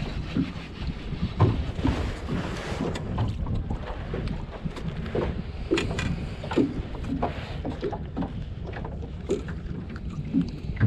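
Water slapping and sloshing against a small boat's hull in irregular short knocks, with wind buffeting the microphone as a steady low rumble.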